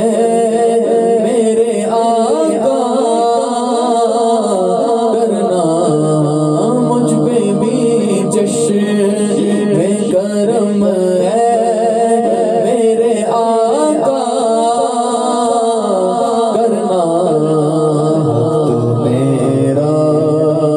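Man singing a naat into a handheld microphone in long, winding held phrases, his voice run through a K Audio mixer with mono echo added.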